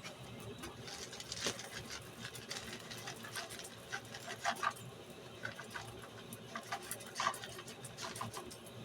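Charcoal forge fire with air blown into it: a low steady rush with scattered short crackles and pops.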